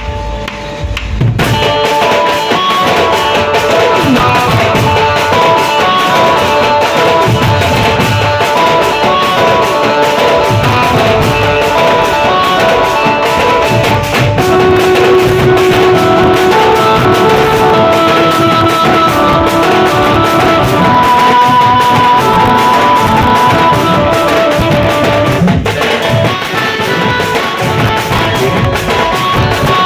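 Street band party playing a Koraputia song: dhol drums beat a fast, dense rhythm under a loud amplified melody line. The full band comes in sharply about a second and a half in and keeps playing.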